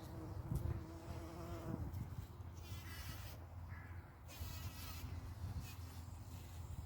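A bee buzzing close by in a steady hum that stops about two seconds in, over a low rumble.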